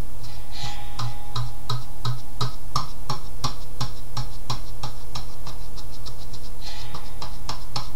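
Sponge applicator of a shoe-polish bottle dabbed again and again on the painted metal front grille of an Edison Amberola 30 phonograph: light, even taps about three a second, over a steady low hum.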